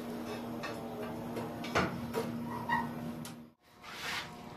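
Irregular knocks and clacks of hand tools and a metal bar being handled at a tiled counter, over a steady low hum. The sound drops out for a moment near the end.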